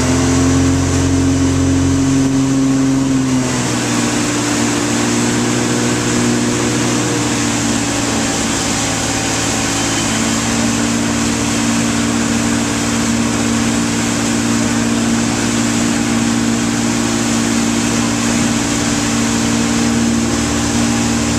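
Motorboat engine running steadily at towing speed, its note shifting slightly about three and a half seconds in, over a constant rush of wind and churning wake water.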